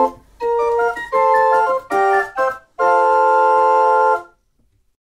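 Small wooden Doe-Orgel pipe organ, winded by hand-pumped bellows, playing a lively tune in quick chords, then holding a final chord that stops about four seconds in.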